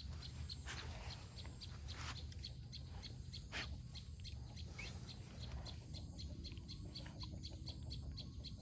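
A husky-type dog sniffing and snuffling with its nose in the dirt, giving a few sharp puffs in the first few seconds. Behind it runs a steady, rapid high chirping of about four chirps a second.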